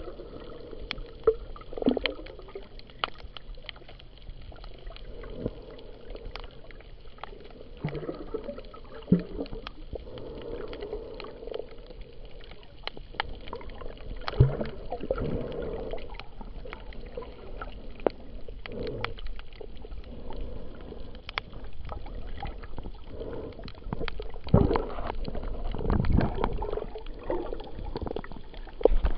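Underwater sound as picked up by a camera held under the sea: a muffled wash of moving water that swells every few seconds, with scattered sharp clicks throughout.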